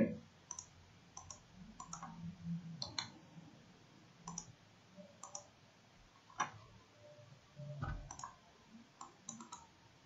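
Computer mouse clicking: faint, scattered single clicks and some quick double clicks.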